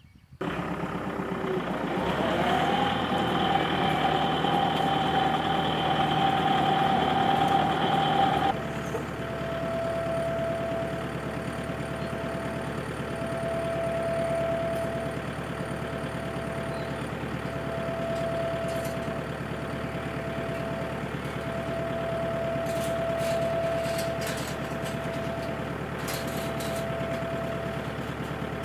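An engine starts suddenly and runs, its pitch climbing about two seconds in and holding. About eight seconds in it drops to a lower, steady running sound with a faint whine that comes and goes.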